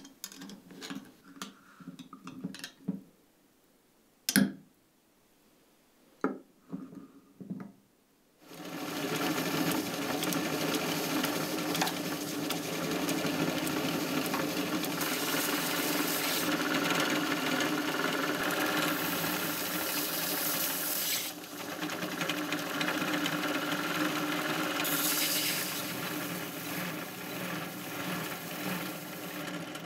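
For the first eight seconds, light clinks and knocks as the rusted Opinel blade is lifted out of a glass jar of vinegar with a metal rod, with one sharp knock about four seconds in. Then a bench grinder starts, its spinning wheel working rust off the blade held against it, and later a belt sander grinds the blade. The machine noise is steady, with a short dip about two thirds of the way through.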